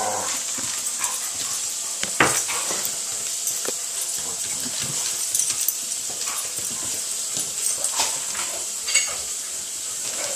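Several dogs playing together: scuffling and scattered light knocks and clicks, with one sharper knock about two seconds in.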